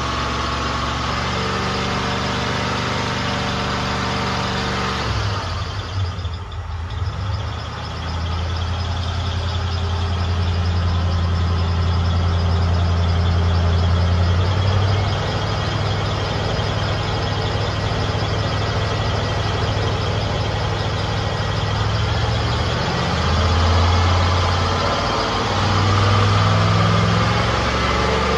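Ford 302 V8 running at idle while the distributor is turned to set the ignition timing. The engine speed sags and wavers about five seconds in, then picks up and settles higher, with two brief rises near the end.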